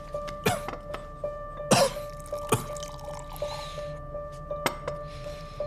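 Soundtrack music with a steady held tone, over a series of short sharp sounds that are strongest in the first couple of seconds.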